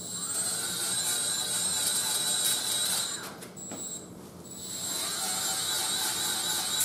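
Die grinder spinning a Scotch-Brite Roloc disc against the differential housing's cover mating surface, a steady high whine over a scrubbing sound as the flange is cleaned. It lets off a little past three seconds, blips once, and runs again from about the five-second mark.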